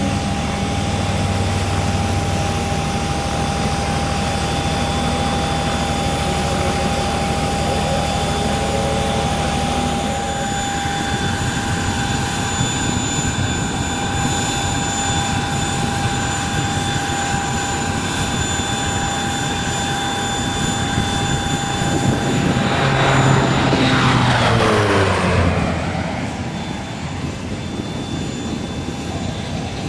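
Embraer EMB-110 Bandeirante's twin turboprop engines and propellers running at high power, with a steady high whine, as the plane climbs out after takeoff. About a third of the way in the sound changes abruptly to a low pass. The engine sound swells and then drops sharply in pitch as the plane goes by, loudest about three-quarters of the way through.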